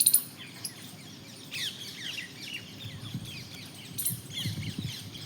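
Small birds chirping over and over, quick falling chirps, with a sharp click at the very start and another about four seconds in.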